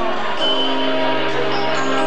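Music with slow, sustained notes that change pitch every half second or so.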